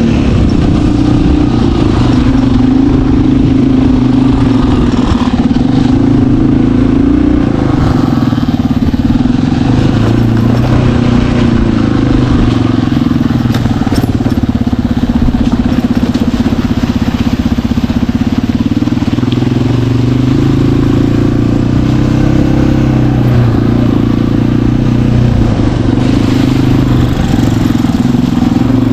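Off-road vehicle engine running hard, its revs rising and falling slowly over several seconds at a time.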